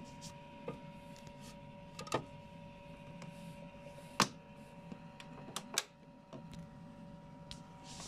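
A hand clicking and knocking against a front-loading washing machine's rubber door seal and drum: a few sharp clicks, the loudest about four seconds in. Under them runs a steady machine hum with two fixed whining tones.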